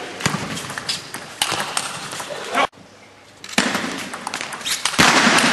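Table tennis ball clicking back and forth off rackets and table in a rally, over background noise from the hall's crowd. The sound drops away abruptly a little before halfway, then the ball clicks resume, and the noise grows louder near the end.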